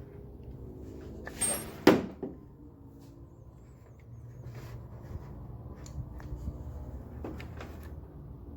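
Datsun 280Z's L-series straight-six running rough on only three of its cylinders, a steady low hum. A sharp click about two seconds in is the loudest sound; the hum dips for a moment after it and then picks up again.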